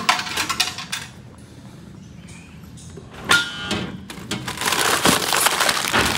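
Snack vending machine delivering a bag of chips: a quick run of knocks as the bag drops from its spiral into the bin, then about three seconds in a sharp clank with a brief metallic ring as the delivery flap is pushed open, and near the end the crinkle of the chip bag being pulled out.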